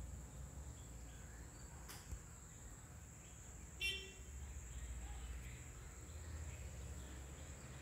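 Quiet background hum and hiss with a thin, steady high whine. A single click comes about two seconds in, and a brief pitched beep about four seconds in.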